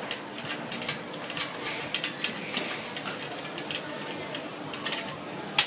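Light metallic clicks and taps of a bolt and washer being handled and threaded by hand into the steel leg of a Jinka 721 vinyl cutter stand, with one sharper click near the end.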